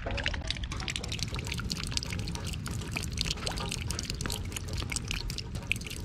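Water drops pattering onto hosta leaves and splashing into a shallow puddle, many irregular drips a second. The sound is dull at the very start and turns bright within the first second.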